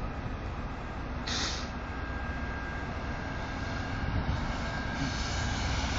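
Norfolk Southern diesel freight locomotive approaching with a steady low rumble that grows a little louder toward the end. A brief hiss sounds about a second in.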